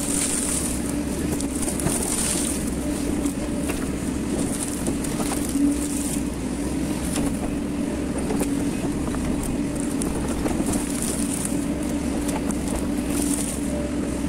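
Hyundai hydraulic excavator running steadily under load while the bucket works through brush, heard from the operator's cab: a constant engine drone with a steady hum that swells now and then, plus scattered clicks and crackles and brief swells of hiss.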